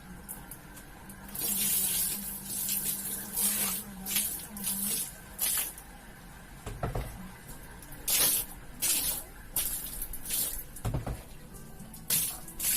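Water spraying onto a carpet in short on-off bursts of hiss, some brief and some lasting about a second. A faint steady hum runs through the first half, and there are two dull thumps.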